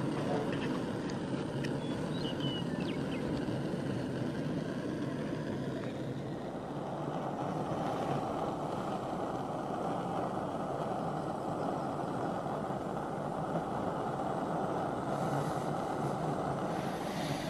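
Camp stove burning steadily under a pot of water that is coming to a rolling boil; the sound fills out about six seconds in.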